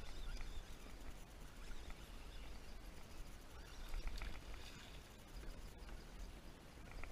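Low, uneven wind rumble on the microphone from a kayak on open water, with faint scattered light ticks over it.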